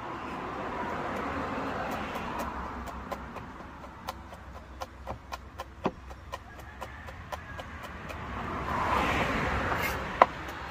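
Kitchen knife chopping crushed garlic on a plastic cutting board: a run of quick, uneven taps, about four a second, with one sharper knock near the end. Under the taps a rushing background noise swells at the start and again near the end.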